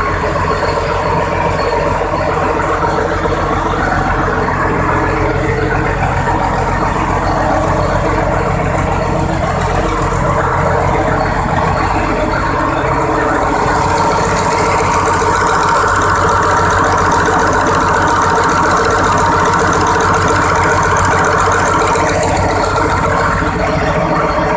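Cummins VTA-28 V12 turbocharged marine diesel engine running steadily on its first start after an overhaul. About fourteen seconds in it gets a little louder and a higher hiss comes up over the engine note.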